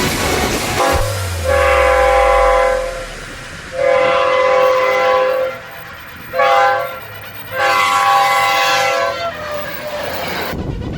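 Train horn sounding four blasts, long, long, short, long: the standard grade-crossing signal. A low rumble fades away under the first blast.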